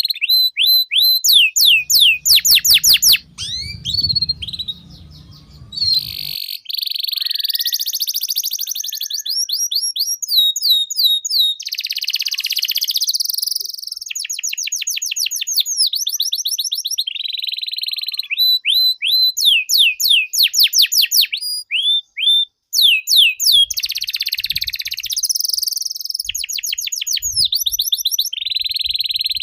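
Domestic canary singing a long, continuous song. Fast trills of repeated downward-sweeping notes alternate with buzzy rolls.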